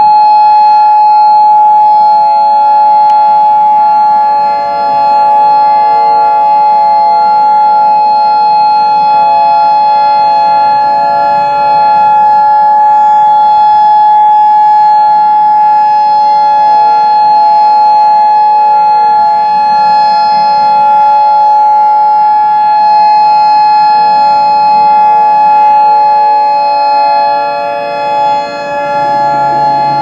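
Federal Signal Modulator electronic outdoor warning siren sounding a loud, steady alert tone on its monthly test. The pitch holds without rising or falling. Shortly before the end the sound dips and lower notes come in.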